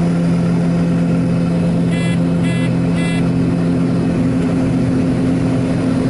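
John Deere combine running steadily under load while unloading corn through its auger, heard from inside the cab as a loud, even drone. Three short electronic beeps sound about two to three seconds in.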